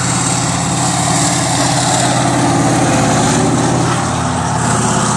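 T-72 tank's V12 diesel engine running steadily as the tank drives close by.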